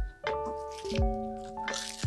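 Background music with a steady bass beat about once a second and sustained keyboard-like notes. Near the end, a crisp crackle of a sheet of dried laver (gim) being bitten.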